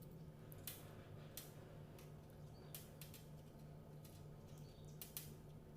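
Near silence with a low steady hum and several faint, sharp clicks and ticks of plastic pearl beads and nylon beading line being handled.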